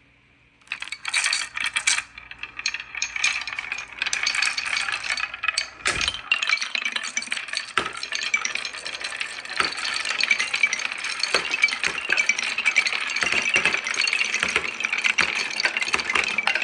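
A crowd of marbles let go all at once, clattering down a handmade wooden marble run as a dense, continuous rattle of clicks and knocks. It starts suddenly just under a second in.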